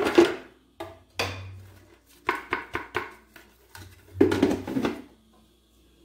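Spoon scraping and tapping as ground annatto powder (colorau) is worked out of a plastic blender jar and against a mesh sieve. It comes in several short bursts of scrapes and knocks with brief pauses between them.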